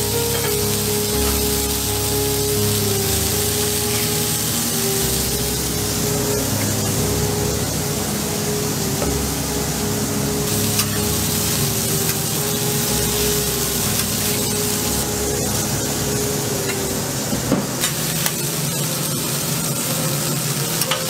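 Burger patties frying on a flat-top griddle, a steady hissing sizzle, under background music with a slow stepping melody. A few sharp clicks come near the end.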